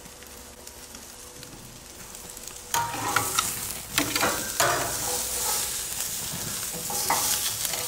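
Steak searing on a hot gas-grill grate, sizzling loudly. The sizzle starts suddenly a little under three seconds in, after a quiet stretch. A few sharp clicks of metal tongs are heard as the steak is turned.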